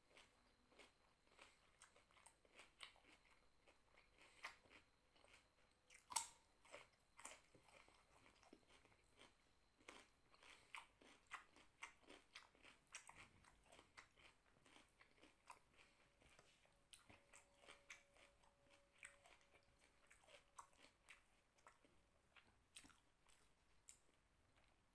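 Close-up chewing and biting of rice and raw cucumber: irregular crisp crunches and wet mouth clicks, several a second, with one louder crunch about six seconds in.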